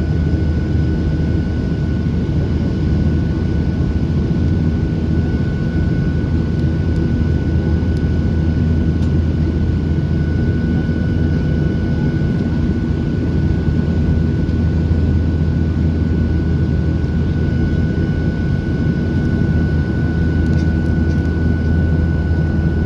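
Steady cabin noise of a Boeing 737-800 in flight: a deep rumble of airflow and its CFM56 jet engines, with a thin, steady high whine above it.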